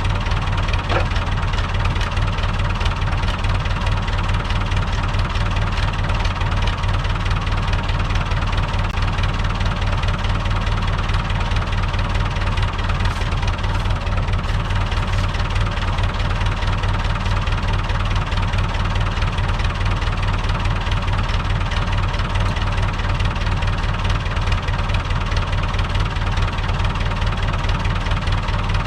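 Tractor diesel engine idling steadily with a fast, even clatter.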